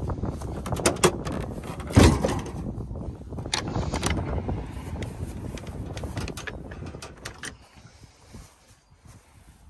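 Ford F-150 tailgate clunking open with a loud thud about two seconds in, then a heavy wooden drawer rolling out of the truck bed on its slides, with clicks and knocks from its metal pull handles. The noise dies down near the end.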